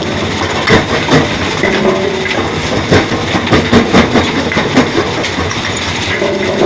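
Vibrating grizzly feeder running under a load of large stones: a steady, loud mechanical rumble with irregular knocks of rock on the steel deck and grizzly bars.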